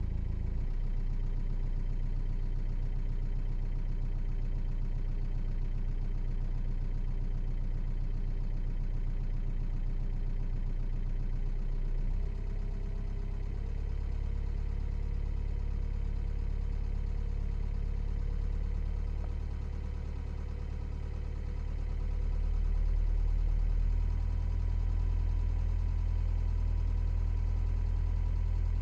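Hyundai Verna CRDi's common-rail diesel engine running, heard inside the cabin with the strange noise the owner is asking about. A steady low hum; about twelve seconds in the pitch shifts and a higher steady tone comes in, and the sound grows a little louder in the last few seconds.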